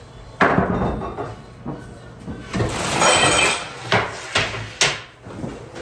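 Dishes and kitchenware being handled and set down, a string of clatters and knocks, with sharp single knocks near the end.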